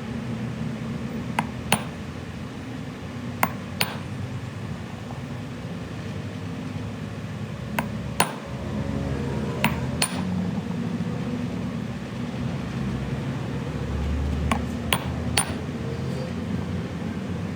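Hammer tapping on a metal part: about eleven sharp, ringing strikes, mostly in quick pairs a few seconds apart and three in a row near the end, over a steady low hum.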